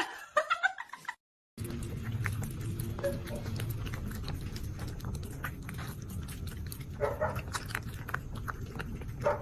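Cat eating close to the microphone: a run of sharp chewing clicks over a steady low rumble. Brief calls come near seven seconds and again at the very end. A short pitched sound in the first second comes from the kitten clip.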